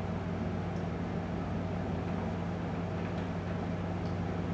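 A steady low hum under a faint, even hiss, with no distinct events.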